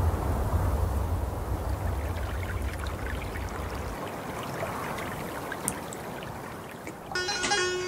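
River water rushing in a steady, even wash that slowly fades, with a deep rumble underneath that stops about halfway. Plucked-string music like a sitar comes in near the end.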